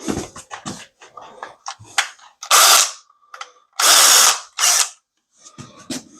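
Power drill run in three short bursts, after a couple of seconds of clicks and knocks from handling.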